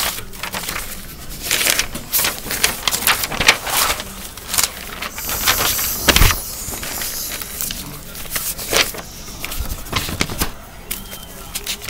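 Sheets of drawing paper rustling and flapping as a stack of drawings is handled and leafed through close to the microphone, in a run of quick crackles, with a dull bump about six seconds in.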